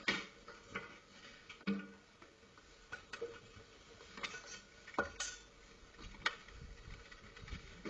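Scattered light knocks and clicks, irregularly spaced a few each second, with a few louder ones: a person scrambling up a brick wall and in through an open uPVC window, knocking over a flowerpot at its foot.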